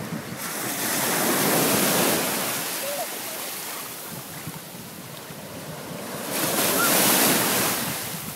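Ocean waves breaking on a beach twice, each one swelling up and washing back, with wind on the microphone.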